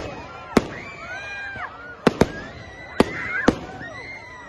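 Fireworks going off: five sharp bangs at uneven intervals, two of them in quick succession about two seconds in, with crowd voices calling out between them.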